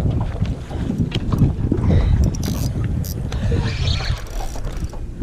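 Wind buffeting the microphone on a small fishing boat, a steady heavy rumble, with scattered clicks and knocks and two brief hissing sounds about two and a half and three seconds in.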